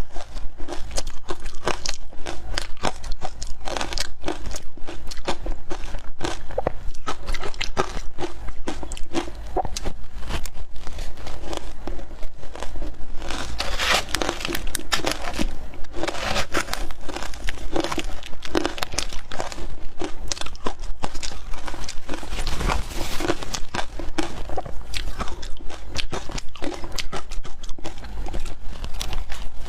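Frozen matcha ice being bitten and chewed: a continuous run of dense, crackling crunches.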